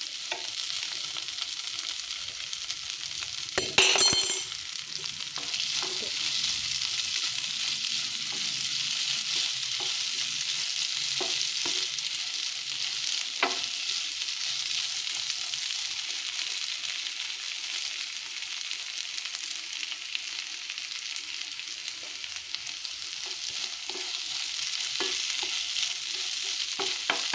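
Cubed boiled potatoes frying in ghee in a nonstick pan: a steady sizzle, with a wooden spatula scraping and knocking against the pan now and then. A brief loud burst of noise about four seconds in.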